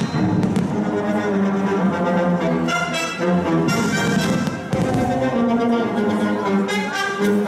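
Orchestral music with brass and strings plays continuously, with the sudden bangs of fireworks bursting a few times over it.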